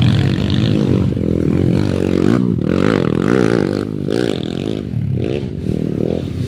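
Dirt bike engines revving hard, the pitch climbing and falling again and again as the throttle is worked on a steep grassy climb.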